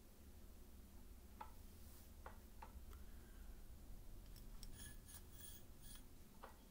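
Faint handling noise of a borescope probe being worked through a rifle barrel: a few scattered light clicks, then a quick run of thin, high ticks and scraping between about four and six seconds in, over a low steady hum.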